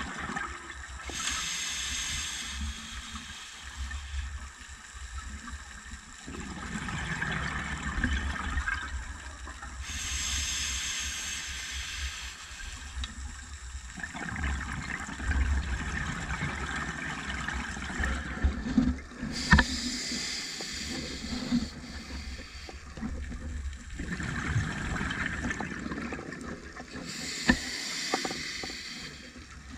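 Scuba diver's regulator breathing underwater: slow hissing inhalations alternating with longer bubbling exhalations, four exhales about eight seconds apart, over a steady low rumble of water.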